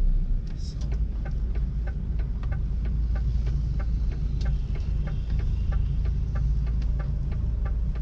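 Lorry's diesel engine running with a steady low rumble, heard inside the cab, with the indicator relay ticking evenly about three times a second.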